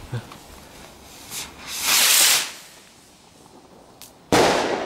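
A garden firework rocket launching with a loud, high-pitched hiss lasting under a second, about two seconds in. About two seconds later, near the end, comes a sharp bang as it bursts, dying away slowly.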